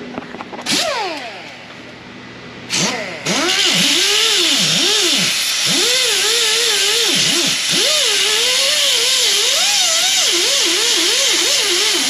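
Angle grinder with a 40-grit disc sanding rust off a truck's steel frame: a brief spin-up that winds down about a second in, then from about three seconds a long steady run whose motor pitch dips and rises as the disc is pressed into the metal, over a loud hiss.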